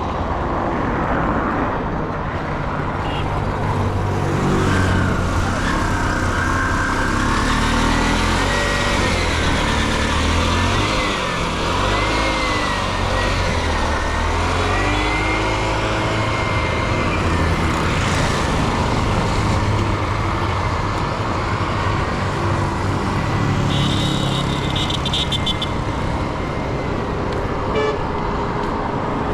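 Busy street traffic: vehicle engines running close by, with a pitch that rises and falls in the middle stretch. A short horn toot comes about twenty-four seconds in.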